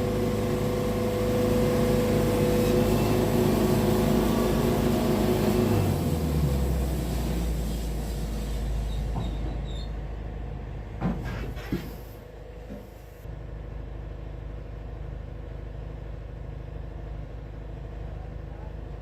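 Wood-Mizer band sawmill's engine running steadily, then dropping to a lower, slower idle about six seconds in and carrying on more quietly. Two short knocks come about halfway through.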